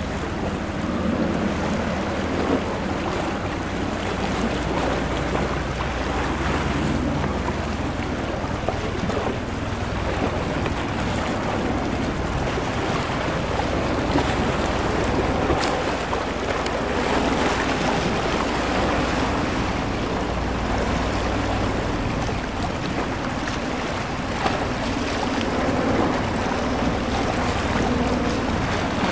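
MV-22 Osprey tiltrotor in flight, nacelles tilting up from airplane toward helicopter mode: a steady rotor and engine drone with a deep low rumble, mixed with wind noise on the microphone.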